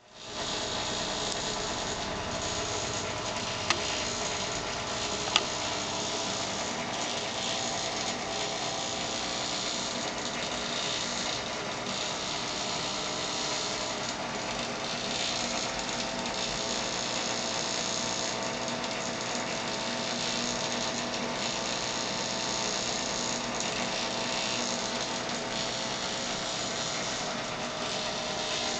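Steady mechanical whirring and hum from a small motor running without a break, with two short clicks a few seconds in.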